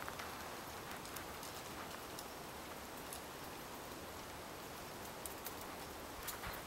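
Faint steady outdoor hiss with a few scattered soft crunches, footsteps shifting on packed snow.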